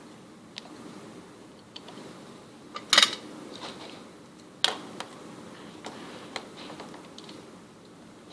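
A few sharp clicks and taps from handling a circuit board, its components and tools on a workbench. The loudest comes about three seconds in, another just before five seconds, with lighter ticks between.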